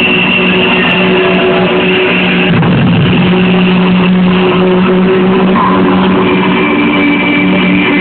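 Loud electronic dance music from a club sound system, mostly long held synth tones with no clear beat. It sounds muffled, with no treble.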